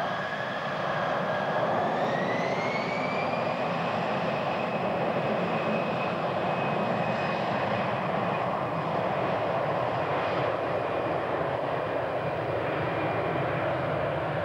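Airbus A320-family airliner's jet engines spooling up on the takeoff roll: a whine rises over the first few seconds, then holds at a steady high pitch over the loud rush of the engines.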